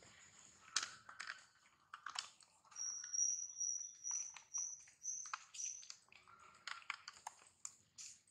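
Outdoor chirping: scattered sharp chirps and clicks, with a thin, high, pulsing trill held from about three to six seconds in.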